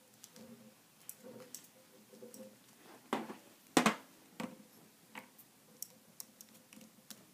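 Light plastic clicks and taps from toy wrestling figures, a toy ring and a toy championship belt being handled, with two sharper knocks about three and four seconds in.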